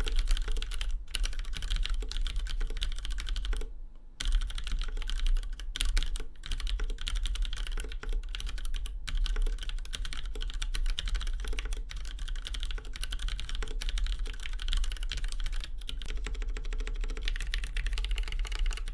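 Continuous fast typing on a 40% ortholinear custom keyboard with Cherry MX Black switches in a polycarbonate case, the keystrokes clacking without a break except for a short pause about four seconds in. The sound is soft rather than hard and crisp, quiet, with little hollow case ring.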